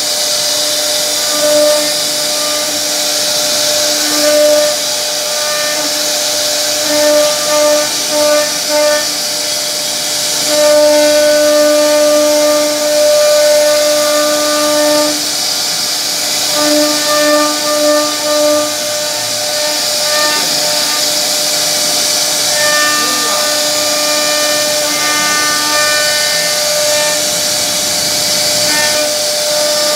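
CNC router spindle running at high speed, its bit carving relief patterns into a solid wood door panel. A steady high hiss sits under a pitched whine that grows louder in short spells many times over.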